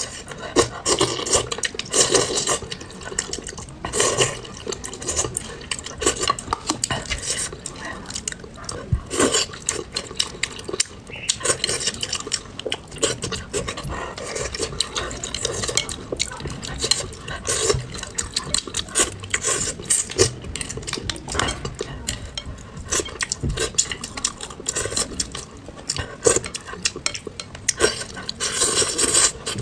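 Chopsticks clicking and scraping on a plate of braised bream in sauce, with close-miked eating sounds: chewing and slurping.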